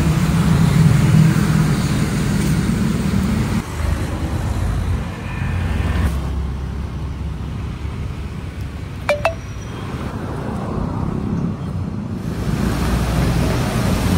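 City road traffic: motor vehicles passing with a steady rumble of engines and tyres, loudest at the start and again near the end, where a motorcycle goes by. Two short clicks about nine seconds in.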